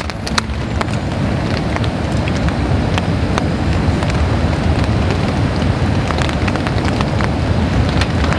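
A beer can is cracked open just after the start, a few sharp clicks as the tab is pulled. Then a steady light rain falls, with scattered drops ticking.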